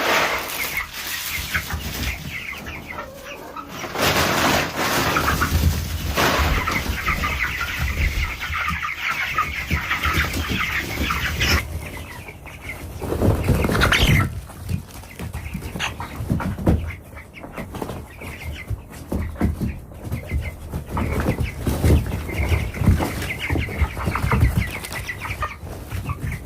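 Chickens clucking and calling, many short calls in an uneven stream.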